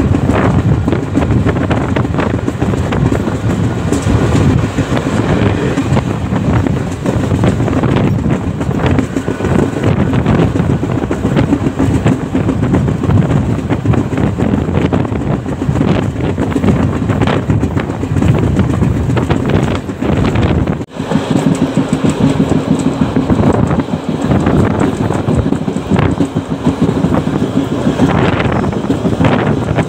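Indian Railways passenger train running at speed, heard from on board: a steady rumble of wheels on rail with frequent knocks as the wheels cross rail joints, and a brief sharp dip in the noise about two-thirds of the way through.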